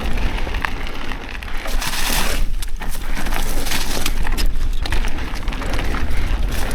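Mountain bike riding over loose rock, tyres crunching with many small clicks and knocks from the bike and stones, over a steady low rumble.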